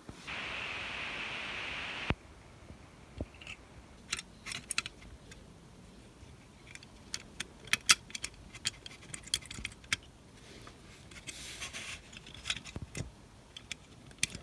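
A steady hiss for about the first two seconds, then a run of small, sharp clicks and taps of plastic model-kit parts being handled and clipped together on the bench.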